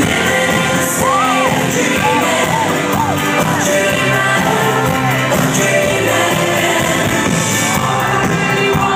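Live pop band playing with a woman singing lead, her voice sliding up and down in pitch over the band.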